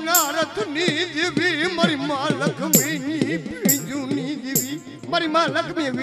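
Gujarati devotional folk music: a held, wavering melody over drumming. Three sharp percussive clashes come about a second apart midway through.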